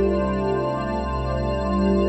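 Background music: soft, sustained synthesizer chords in a new-age style.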